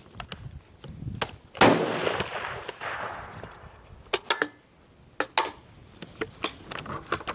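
A single rifle shot about a second and a half in, with a long echoing tail, followed by several sharp metallic clicks and knocks as the rifle's bolt is worked and jams.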